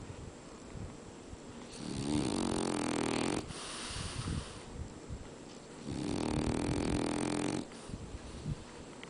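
French bulldog snoring in its sleep: two long, loud snores, the first about two seconds in and the second about six seconds in, with quieter breathing between them.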